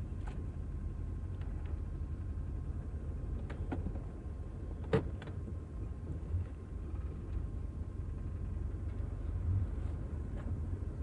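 Low, steady rumble of a car heard from inside the cabin as it moves slowly, with a few light clicks and one sharper click about five seconds in.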